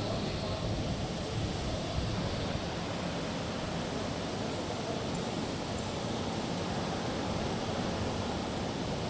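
Steady machine drone with a low hum, level throughout with no knocks or cutting strokes, typical of a hydraulic shearing machine's pump unit running between cuts.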